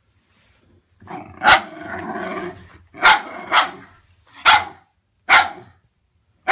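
Wire fox terrier barking in short, sharp single barks, about six of them starting about a second in, with growling between the first few.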